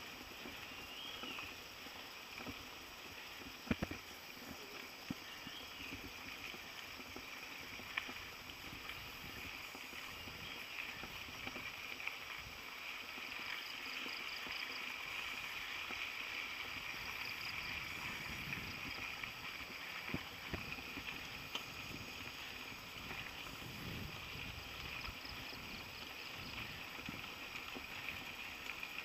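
Mountain bike tyres rolling over a dirt and gravel trail, a steady rushing noise with wind on the microphone, broken by occasional sharp knocks and rattles as the bike hits bumps.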